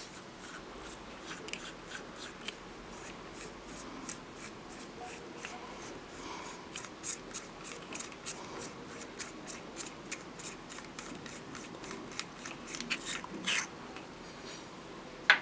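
Small irregular metal clicks and light scraping from a pen-type tattoo machine's threaded metal body being unscrewed and taken apart by hand. The ticks grow denser after about six seconds, with a louder cluster near the end.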